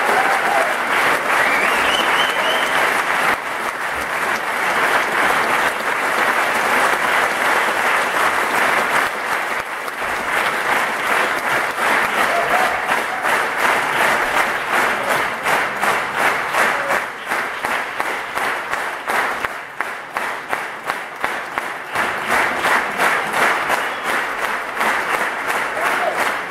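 Theatre audience applauding a concert. After about fifteen seconds the clapping settles into a steady rhythm in unison, about three claps a second, with a few cheers near the start.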